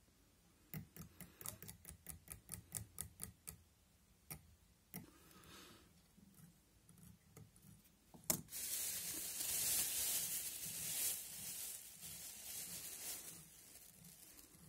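Tying thread being wrapped onto a hook clamped in a fly-tying vise: a quick run of light ticks at about five a second, then a sharp click and a few seconds of soft rubbing hiss.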